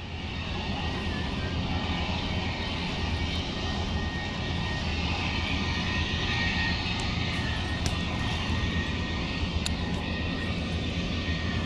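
A steady low rumble with a hiss above it, holding even throughout, with a couple of faint clicks.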